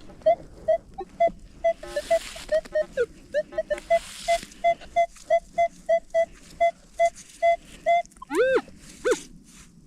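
Minelab Manticore metal detector sounding over a target: a steady run of short same-pitched beeps, about two and a half a second, then near the end a few quick tones that rise and fall in pitch as the coil passes over the target. Brief rustling about two and four seconds in.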